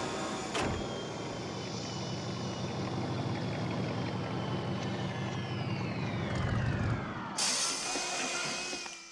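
Sound effects of the flying DeLorean time machine: a steady hovering hum with a sharp hit just after the start. As it sets down, a falling whine sounds as it powers down, and about seven and a half seconds in comes a sudden loud hiss like an air brake.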